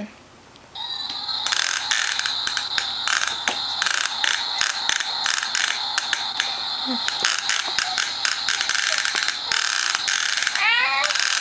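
Vacuum cleaner switched back on by its button about a second in, then running with a steady high whine and a dense rattle of clicks.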